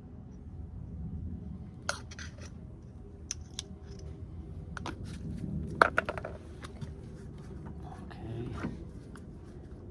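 Scattered metallic clicks, clinks and knocks of tools and rear brake caliper parts being handled, the loudest about six seconds in.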